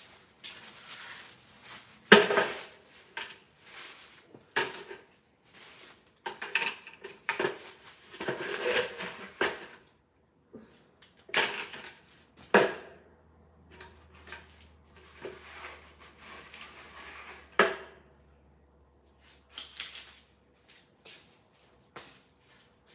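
Irregular clatter and sharp knocks of hard objects being handled and set down, with short scraping rustles between them. A faint low hum comes in for several seconds after the middle.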